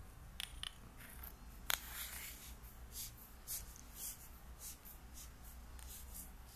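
Sofirn SD05 flashlight being put together by hand: the metal tail cap is screwed onto the battery tube, giving a sharp click about two seconds in and then a run of short scraping strokes from the threads.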